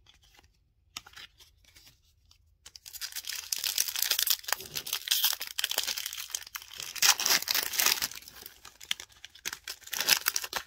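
Foil wrapper of a Panini trading card pack being torn open and crinkled by hand, in uneven bursts starting about three seconds in.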